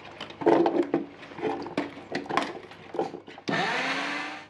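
A few knocks and clatter, then about three and a half seconds in a countertop blender's motor starts with a rising whine and runs loudly for about a second, blending onions, tomatoes and peppers.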